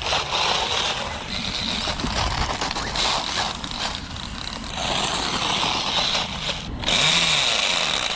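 Radio-controlled model car driving over rough, wet ground: a steady high motor whine over tyre and ground noise, with a sudden change in the sound about seven seconds in.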